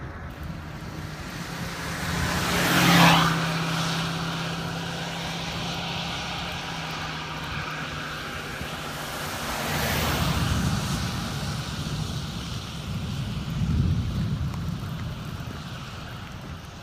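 Vehicles passing on the road close by: tyre and engine noise swells to a sharp peak about three seconds in and again more softly about ten seconds in, over a steady rush of wind on the microphone.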